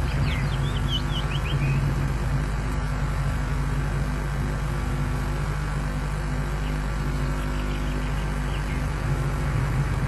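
A bird calling a quick run of short, falling whistled notes in the first two seconds, and a fainter run near the end, over a steady low hum.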